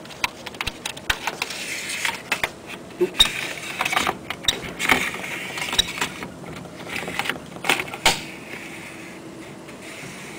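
Plastic sunroof guide-track parts being handled: irregular clicks and knocks over a scratchy rubbing as a new part is slid and pressed along the track.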